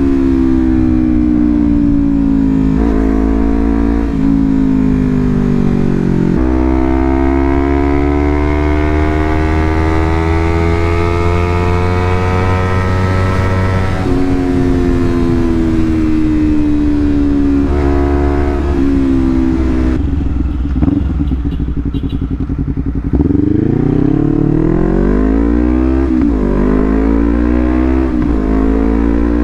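Honda CBR250RR with a Leovince GP Corsa full-system exhaust being revved at a quarter to half throttle: short blips and longer held revs that rise and fall again. It drops to a lower, quieter idle about two-thirds of the way through, then is blipped several times again near the end.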